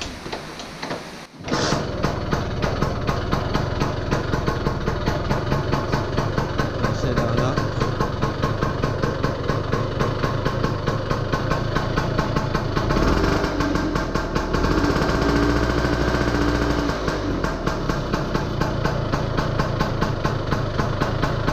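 Lambretta GP125 single-cylinder two-stroke engine kick-started, catching about a second and a half in, then running at a fast idle with a rapid, even firing beat. It runs a little louder for a few seconds past the middle.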